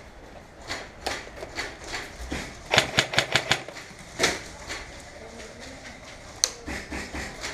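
Airsoft guns firing: scattered sharp shots, with a quick burst of about six about three seconds in and single shots after.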